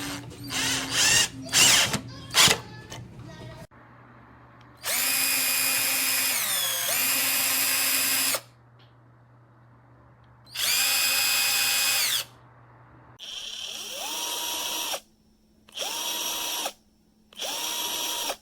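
Cordless power tool motor spinning freely with no load, triggered in bursts: two runs of a few seconds, then four short spurts of about a second each, each winding up and spinning down. A few knocks and clicks in the first few seconds.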